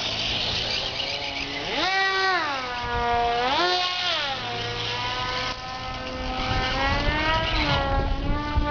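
Electric motor and propeller of a small foam RC F-22 model jet in flight: a whine that climbs and drops back in pitch twice with the throttle, holds steady, then climbs again near the end. Wind rumbles on the microphone.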